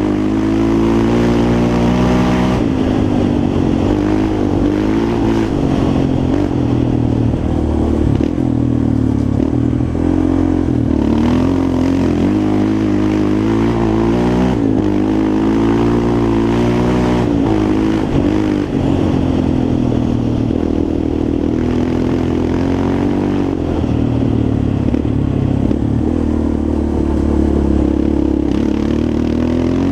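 Yamaha Raptor 350 quad's single-cylinder four-stroke engine running under riding load, its pitch rising and falling every few seconds as the throttle is opened and eased off.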